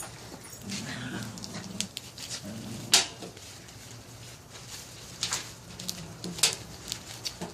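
Heavy slime with pennies mixed in being squeezed and pulled, giving scattered sharp pops and clicks, the loudest about three seconds in.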